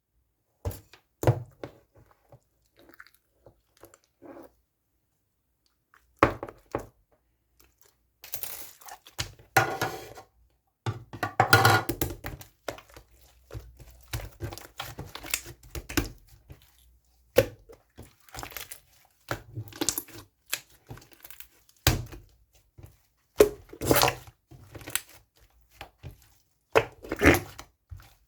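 Slime being squeezed and pressed by hand, giving irregular clicks, pops and crackles as air bubbles trapped in it burst, with a short lull a few seconds in.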